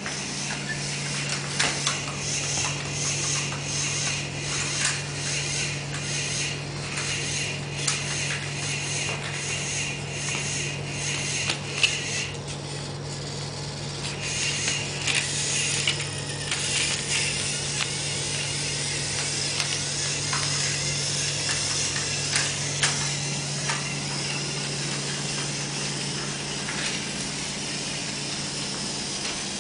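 Motorized Thomas & Friends toy trains running on plastic track: a steady motor and gear whir, with irregular clicks and rattles.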